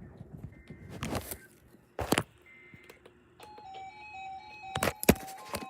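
Simple electronic music: a beeping, tinkly melody begins about three and a half seconds in, with several sharp thumps or clicks scattered before and during it.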